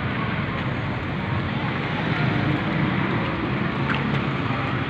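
A van's engine running at a steady idle close by, mixed with steady street traffic noise.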